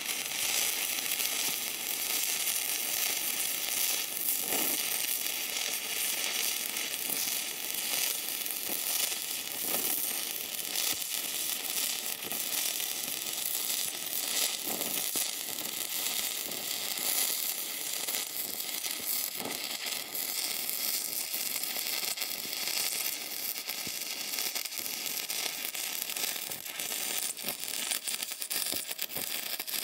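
Stick-welding arc: a coated electrode burning in a steady, crackling sizzle as a weld bead is run joining a steel hitch shank to a bench vise.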